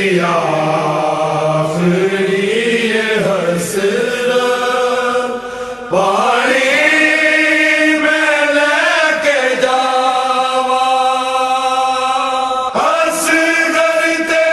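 A single voice chanting a slow devotional recitation in long, drawn-out sung notes that glide up and down, with a new phrase starting about six seconds in and again near the end.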